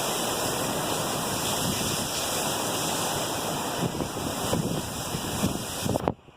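Hurricane wind and heavy rain: a steady rushing noise with gusts buffeting the microphone. It cuts off suddenly near the end.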